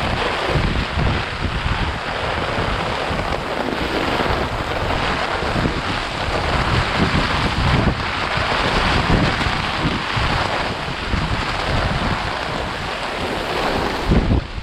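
Gusty typhoon wind blowing hard, with a steady rushing hiss and uneven low rumbling buffets on the microphone.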